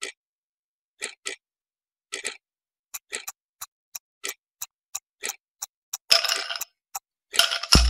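Ticking-clock sound effect for a countdown timer: paired tick-tock clicks about once a second, quickening to about three ticks a second midway. Near the end come two short, louder rattling bursts.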